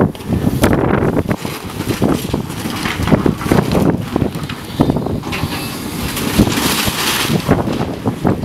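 Demolition of a building: irregular crunching, cracking and clattering of wreckage being torn apart and falling, with wind buffeting the microphone.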